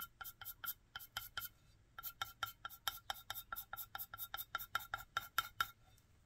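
An underglaze pencil scratching back and forth on a bisque-fired clay plate, colouring in with quick strokes about five a second. There is a short pause about a second and a half in, and the strokes stop near the end.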